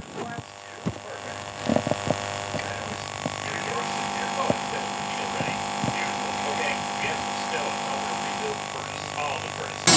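Steady electrical mains-type hum from a silent stretch of VHS tape played back on a TV, with a few faint scattered clicks and knocks.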